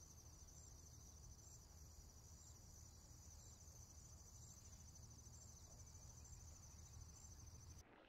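Faint, steady, high-pitched insect trill: a continuous buzz with a fine, rapid pulse that cuts in and out abruptly.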